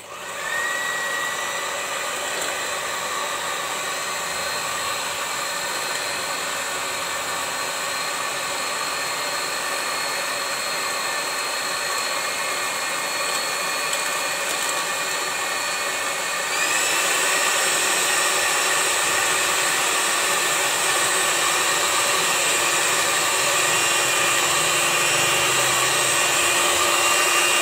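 Electric mixer beating cake batter: a steady motor whine that spins up at the start, then steps up to a higher pitch and gets louder a little past halfway as it runs faster.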